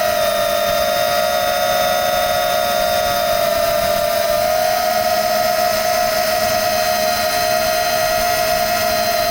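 FPV multirotor drone's electric motors and propellers whining steadily in flight, the pitch shifting slightly with throttle.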